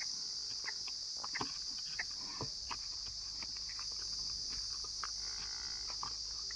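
Steady high-pitched drone of insects, with scattered short clicks and knocks below it.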